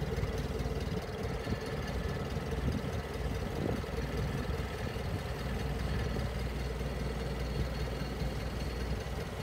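Clark C40 LPG-fuelled forklift engine running steadily at low revs while the hydraulics lift the forks up the mast.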